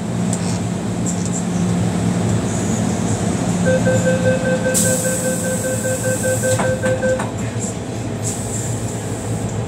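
MTR Tsuen Wan Line train standing at a station platform. The door-closing warning sounds as a rapid, evenly pulsing beep that starts about three and a half seconds in and lasts about three and a half seconds. A hiss joins midway and two knocks come as the doors shut, over the steady hum of the stationary train.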